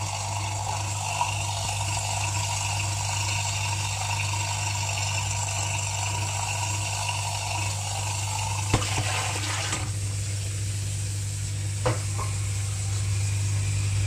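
Indesit DSG 263 dishwasher drain pump running with a steady low hum while water is sucked down the sump, with a burst of splashing about nine seconds in and a couple of short knocks. The pump keeps running without stopping, the fault on this machine.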